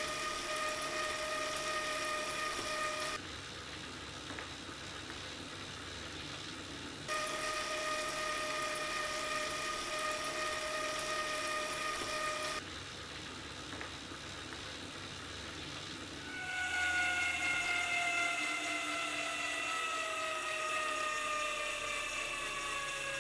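Wahoo KICKR direct-drive smart trainers spinning at about 20 mph, heard in turn. One gives a steady whine of several pitches, and the other runs quieter with only a soft whir; the sound switches back and forth every four to five seconds. From about two-thirds of the way in, a louder whine returns and slowly falls in pitch as the flywheel spins down.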